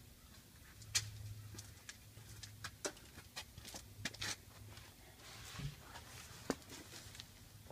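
Scattered faint clicks and taps, a dozen or so irregular light knocks, over a low steady hum.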